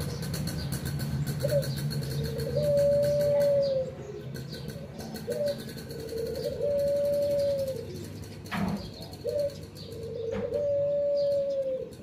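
Caged ringneck dove (burung puter) cooing three times, about every four seconds. Each coo is a short note followed by a long drawn-out one that falls away at the end.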